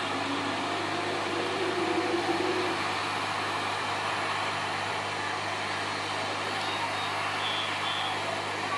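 Hot air rework gun blowing steadily, heating solder paste on an IC reballing stencil to melt it into solder balls.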